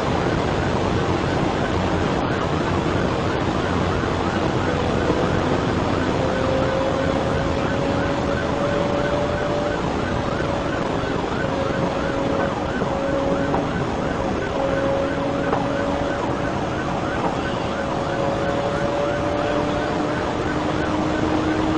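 Police car siren in a fast, repeating up-and-down yelp, heard from inside the pursuing patrol car over heavy wind and road noise at well over 100 mph.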